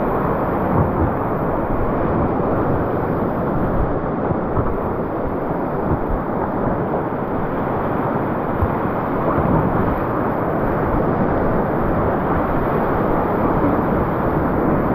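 Whitewater rapids rushing and splashing around an inflatable packraft, heard close up from the boat as a loud, steady roar of moving water.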